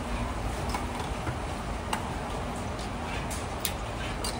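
A handful of light, sharp clicks and taps as canned green peas are emptied into a wire mesh strainer and the tin cans are handled, over a steady kitchen background hum.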